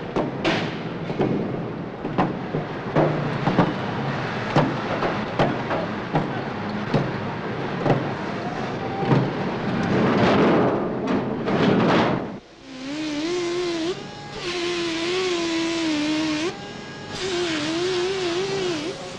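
Sheet-metal factory din from truck cab assembly: frequent sharp metallic bangs and clanks over a steady clatter. About two-thirds through, this gives way to a grinding wheel on steel, its whine wavering in pitch as it bites, breaking off briefly twice.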